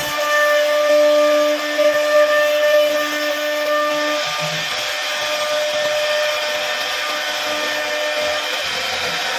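CNC router spindle running with a steady whine while its bit cuts into wood.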